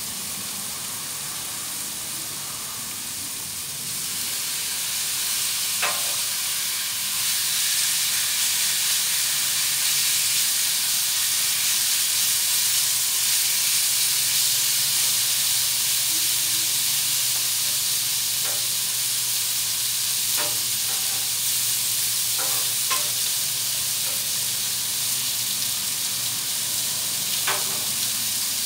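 Raw chicken pieces sizzling on a hot propane flat-top griddle, the sizzle growing louder a few seconds in as the chicken goes down. A few sharp clicks and scrapes of a metal spatula on the griddle plate come through it.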